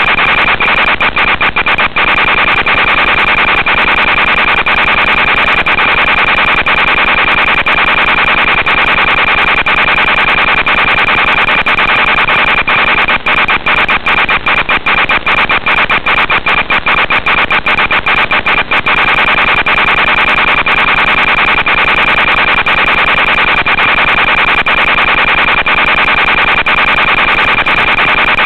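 Loud, steady hiss and buzz from an analog FPV video link's audio channel, with a constant high whine and frequent crackling clicks that thicken for several seconds in the middle. This is static and interference rather than a recorded sound.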